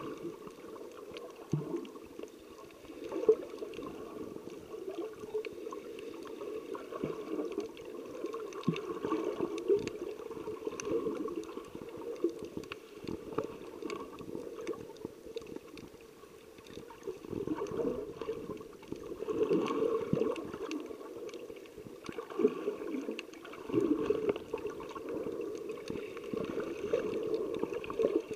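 Water heard underwater: a muffled, gurgling wash that swells and fades irregularly, with faint scattered ticks.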